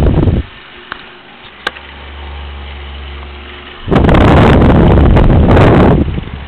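Table fan running, its air blast buffeting the microphone: a loud wind rumble at the start and again from about four seconds in for two seconds, with a steady low hum of the fan between.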